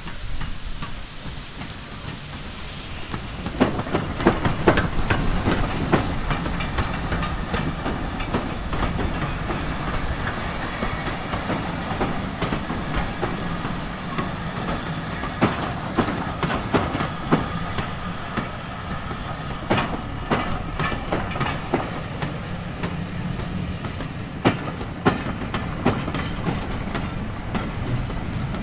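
Railway passenger coaches rolling slowly past, their wheels clacking irregularly over rail joints and pointwork, beginning a few seconds in, over a steady rumble.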